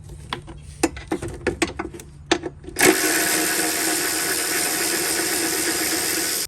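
A run of light clicks and taps, then about 3 s in a hand-held power tool's motor starts and runs steadily at one pitch, loosening the bolts of the fuel filter cover plate, before cutting off suddenly.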